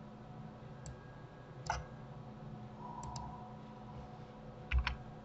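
A few sharp, separate clicks of a computer mouse and keyboard, the loudest a quick pair near the end, over a faint steady electrical hum.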